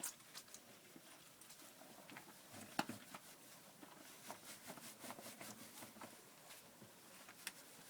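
Faint scattered taps and small clicks from a wet dog being handled in a bath, with one sharper knock nearly three seconds in.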